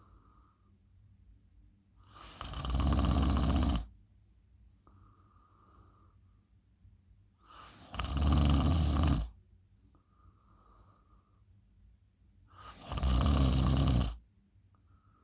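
A person snoring loudly: three long snores about five seconds apart, each lasting a little over a second, with quiet breathing between them.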